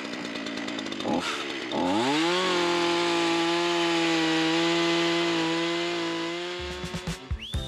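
Two-stroke petrol chainsaw revved up about two seconds in and held at a steady full-throttle pitch as it cuts into a log, then letting off near the end. Music comes in at the very end.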